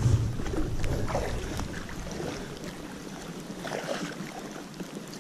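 Steady hiss of rain falling on a river, with scattered light taps. Wind buffets the microphone at first and dies away over the first couple of seconds.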